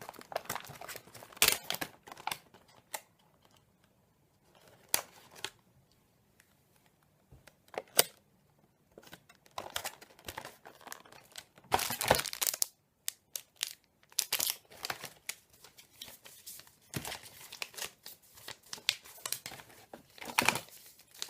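Packaging crinkling and tearing in irregular bursts as the contents of a drone's box are pulled out, with a couple of short quiet pauses; the loudest rustles come about 8 and 12 seconds in.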